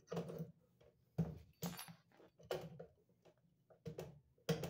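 Pliers knocking and clinking against small sheet-metal parts in about six irregular sharp clicks as knockout rings are twisted and broken off.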